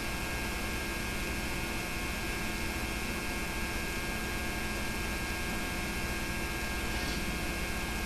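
Steady electrical mains hum with an even hiss, the background noise of a home tape recording transferred from VHS; nothing else sounds.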